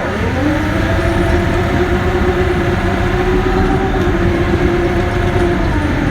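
Cat D6K bulldozer's diesel engine, its pitch rising over the first second, held steady at high revs, then easing off near the end, over a heavy low rumble.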